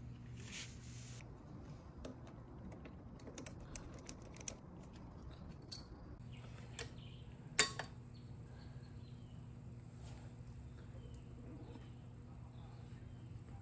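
Light scattered clicks and clinks of a ratchet and socket working engine-case bolts, densest in the first half, with one sharper metallic click about seven and a half seconds in. A low steady hum runs underneath.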